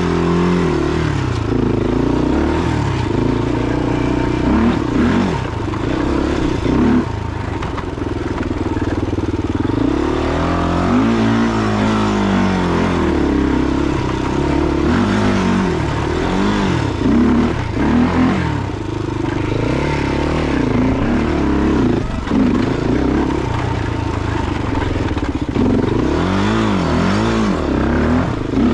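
Honda 400EX ATV with a 416 big-bore kit being ridden, its single-cylinder four-stroke engine revving up and falling off again and again as it is throttled and shifted through the gears.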